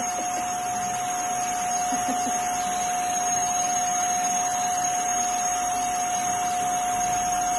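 Vacuum cleaner running steadily, a constant whine over a rush of air, as its hose nozzle is drawn over a cat's fur.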